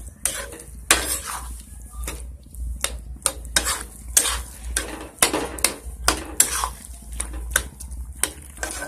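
A spoon stirring thick, wet aloo gobhi masala in a kadhai. It scrapes and knocks against the pan in irregular strokes, about one or two a second.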